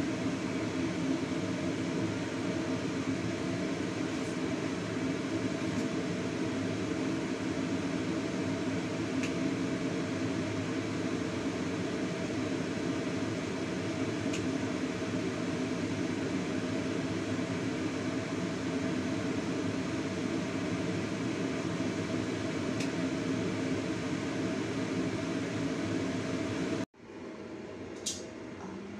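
Steady rumbling hiss of a stovetop with a lidded wok of braise cooking on it, with a few faint ticks. Near the end the sound cuts off, and then there is a metal clink as the stainless steel dome lid is lifted.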